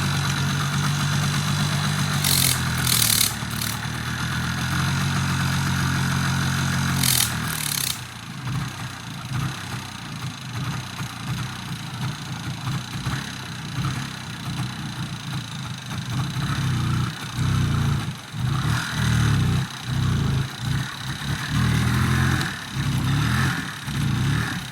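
A vehicle engine running: a steady hum for the first several seconds, then uneven, surging and dropping again and again as it is driven over a rough track. Two short bursts of hiss come about two to three seconds in and again about seven seconds in.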